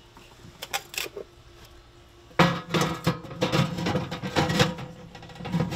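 Sheet-metal wood-chip smoke box scraping and clattering as it is slid into its slot beside an electric smoker's heating element: a few light clicks, then about three seconds of dense metallic rattling and scraping.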